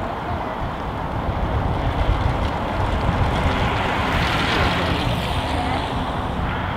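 Wind buffeting an outdoor microphone, a gusty rumble throughout, with a louder rushing swell about four to five seconds in.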